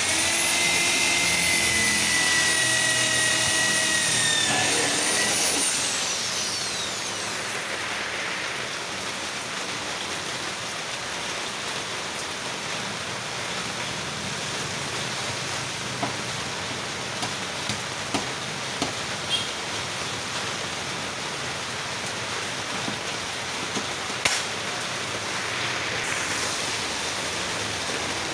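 Corded electric hand drill running at a steady high speed for about five seconds, then winding down in pitch as the trigger is released. Afterwards a steady background hiss with a few light clicks and taps.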